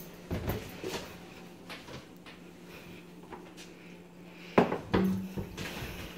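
Kitchen handling noises: a few light clicks and taps, then two sharp knocks about half a second apart, from a cupboard door and a plastic juice jug being handled at the counter. A faint steady low hum runs underneath.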